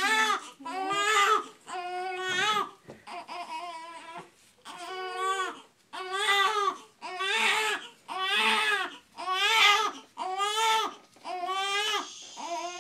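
Infant crying hard in a run of short wails, about one a second, each with a steady, strained pitch.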